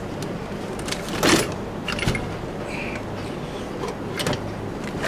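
Junk being shifted and rummaged through by hand: a few scattered clunks and scrapes, the loudest about a second and a half in, over a low steady hum.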